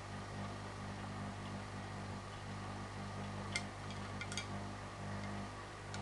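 Hotpoint NSWM 843C washing machine's Invermotor inverter motor running its drum in a spin, a steady low hum. A few sharp clicks come a little past halfway.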